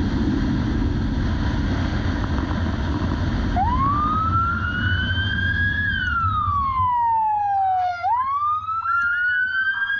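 Police motorcycle riding with engine and wind rush, then about three and a half seconds in its siren starts: a slow wail rising, falling and rising again. The engine and wind noise drops away near seven seconds as the bike slows.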